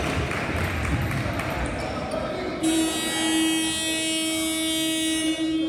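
Sports hall scoreboard buzzer sounding one long, steady, nasal tone for about three seconds, signalling a stop in play. Before it, a ball bouncing and shoes on the court.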